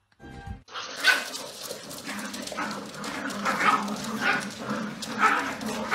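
Puppies yipping and whining in short, high calls, one every half second to a second.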